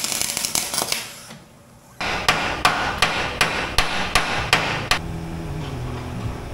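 Arc welder crackling for about the first second, then after a short pause about eight sharp hammer blows, roughly three a second, on a rusted crossmember part clamped in a bench vise. The mechanic is trying to shock loose a corroded broken bolt that has a washer and nut welded onto it.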